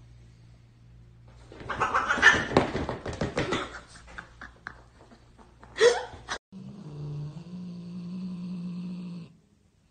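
Two cats scuffling: a loud, rough burst of cat noise with rapid sharp scratches and taps about two seconds in, then a short rising cat cry near six seconds. After a sudden cut, a steady low hum.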